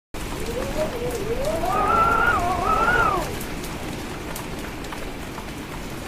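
Storm sound effect: steady rain with scattered drop ticks, and a howl of wind that rises and falls in pitch before dying away about three seconds in.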